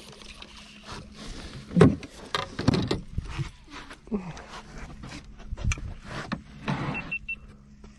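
Fishing tackle being handled and cast from a small boat: irregular clicks and knocks from a baitcasting reel and rod, with a few louder knocks, over a steady low hum.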